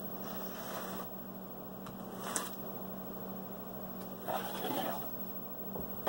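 A pair of dice being pushed across a felt craps layout with a dice stick: soft sliding and scuffing, with a light tick about two and a half seconds in and a longer rustle about four seconds in, over a low steady hum.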